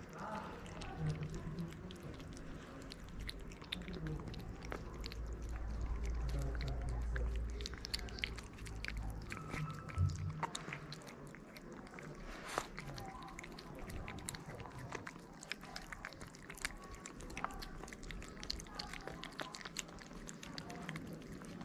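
Two cats chewing and lapping wet cat food from a plate close to the microphone: a steady run of small wet clicks and smacks. A low rumble sits under the first several seconds.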